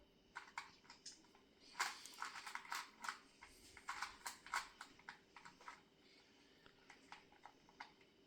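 Plastic clicks of a 2x2 Rubik's cube being turned by hand: a quick, irregular run of turns, busiest in the first half and thinning out toward the end.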